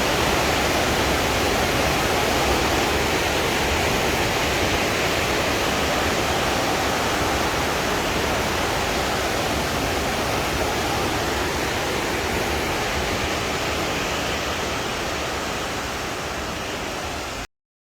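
Waterfall rushing, a steady dense roar of falling water that eases slightly in loudness and then cuts off suddenly near the end.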